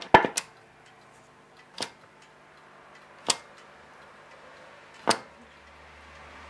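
Phonola 567 tube radio's waveband switch being turned: sharp clicks, two together at the start and then three single ones about a second and a half apart. A faint steady hum from the set with no station tuned runs between the clicks.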